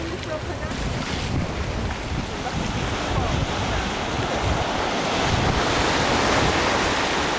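Steady rushing of ocean surf mixed with wind buffeting the microphone, growing a little louder in the second half.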